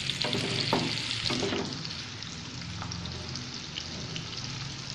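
Food sizzling and crackling steadily in a hot pan, with a few short utensil knocks in the first second or so.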